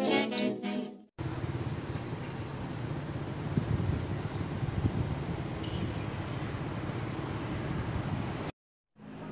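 Background music fades out about a second in. After a short break, a steady low outdoor rumble with a light hiss follows, the sound of street traffic in the open air. It cuts off suddenly shortly before the end.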